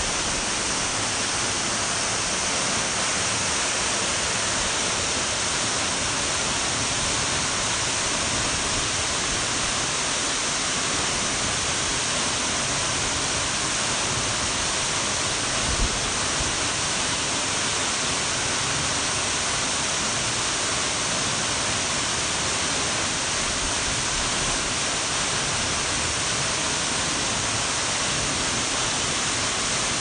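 Steady rush of water from a thin waterfall plunging into a pool in a rock gorge, with a brief thump about halfway through.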